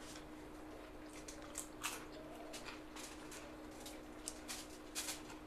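Close-up eating sounds from people eating with their hands: wet lip smacks, chewing and fingers squishing through rice and food, in short scattered clicks.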